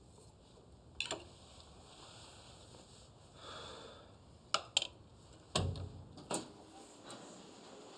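Scattered light knocks and clicks at a table in a quiet room, as a glass is set down and a chair shifts. There is one click about a second in and a quick pair past the middle. The loudest, a dull knock with a low thud, comes shortly after.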